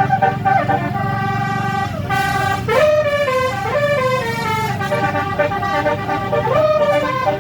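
Bus telolet horn playing a tune: multi-tone horn notes step up and down in pitch, with rising slides about three seconds in and again near the end, over the bus engine's steady hum.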